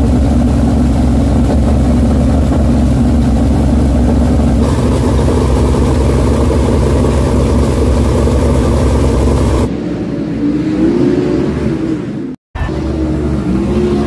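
A 410 winged sprint car's V8 engine running loud and steady right at the microphone, its tone brightening about halfway through. After an abrupt cut near the end, an engine is heard at a lower level, its pitch rising and falling as it is revved.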